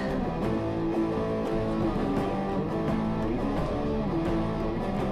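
Instrumental background music at a steady level, with held notes.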